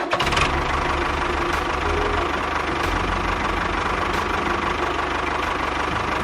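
Engine running steadily at idle with a fast low chugging and a thin steady whine above it.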